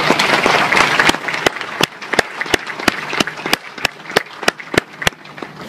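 Audience applauding at the close of a speech. A dense burst of clapping settles about a second and a half in into steady rhythmic clapping in unison, about three claps a second, which stops about five seconds in.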